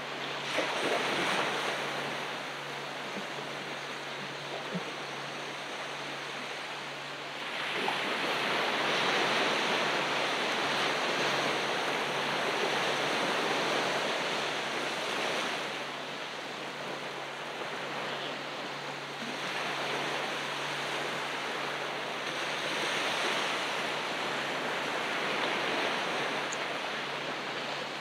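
Ocean surf washing onto the beach, a steady hiss of water with the waves swelling louder three times, each surge lasting several seconds.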